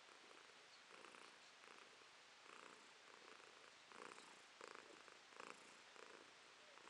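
Domestic cat purring softly while being stroked, the purr swelling and fading with each breath a little more than once a second.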